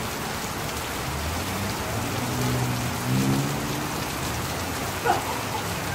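Steady rain falling on grass, leaves and pavement, an even hiss throughout. A faint low hum rises under it from about one to three and a half seconds in, and there is one short sharp tap about five seconds in.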